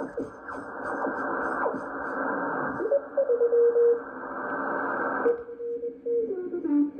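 Ten-Tec Omni transceiver receiver audio: band hiss with a carrier tone whose pitch slides down as the receiver is tuned, then settles into a steady note. The hiss cuts off suddenly about five seconds in, leaving only the tone, which steps lower near the end.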